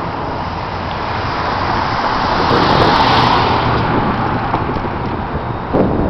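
Road traffic on a bridge deck: a vehicle passes close by, its noise swelling to its loudest about halfway through and then fading. A sudden bump comes near the end.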